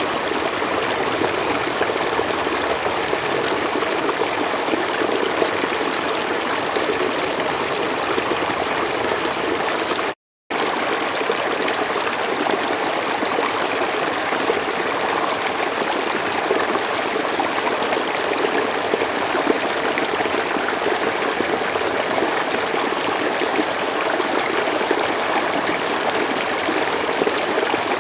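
River water flowing steadily. The sound cuts out completely for a fraction of a second about ten seconds in, then resumes unchanged.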